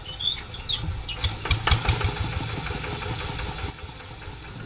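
Single-cylinder diesel engine of a Quick two-wheel hand tractor being started with the hand crank. It chugs in quick rhythmic pulses with sharp knocks, loudest about a second and a half in, then eases off near the end.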